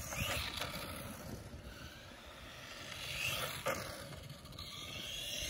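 Electric RC truck running on asphalt: a thin motor whine over tyre noise, swelling about three seconds in and again near the end as the truck drives closer.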